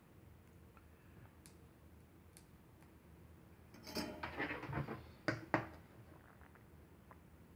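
Brief clatter of metal and glass about four seconds in, ending in two sharp clicks: a soldering iron being lifted from its stand to work on a leaded stained glass panel.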